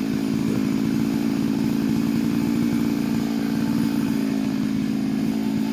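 Two-stroke chainsaw engine running steadily at an even pitch.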